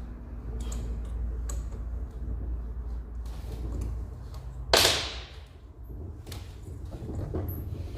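Hand-tool and parts handling on an evaporative-cooler motor: scattered small clicks and knocks, with one sharp, loud clank a little before five seconds in. A low steady hum underneath fades out around the time of the clank.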